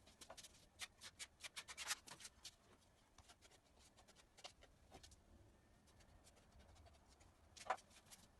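Faint quick clicks and scratches in a small room, thickly bunched in the first two seconds and then scattered, with one louder click near the end.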